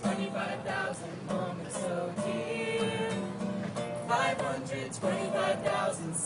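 Music: a small mixed vocal group singing, soprano, alto, tenor and bass parts.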